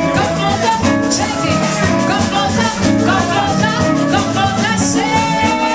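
Live band playing upbeat dance music, electric guitar and singing over a steady beat, with a long held note coming in near the end.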